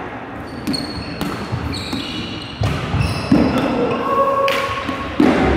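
Rubber dodgeballs hitting and bouncing on a hardwood gym floor, several separate thuds over a few seconds, with short high squeaks of sneakers on the court.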